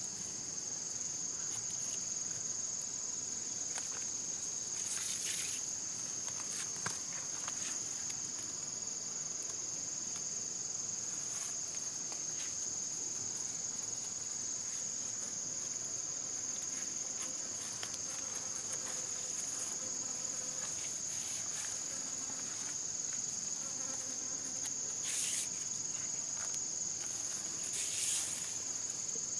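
Steady high-pitched chorus of insects trilling without a break. A few brief rustles and knocks sound about 5, 7, 25 and 28 seconds in, as pieces of giant taro corm are handled and stacked on a woven basket.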